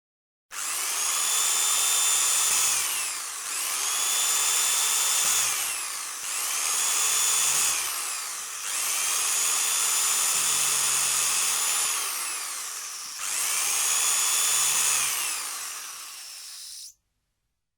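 Electric power drill boring a series of holes: five runs of the high motor whine, each a few seconds long, the pitch falling off at the end of each run as the motor slows. The last run fades and then cuts off suddenly.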